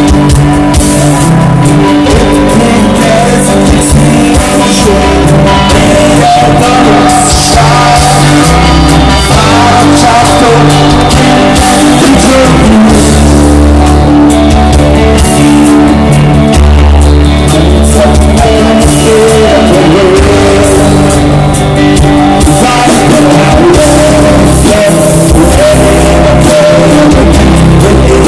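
Live rock band playing loud: electric guitars, bass, keyboard and drums.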